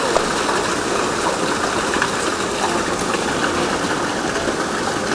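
A steady rush of gushing water, as the water-balanced cliff railway car's ballast tank is filled or emptied at the station.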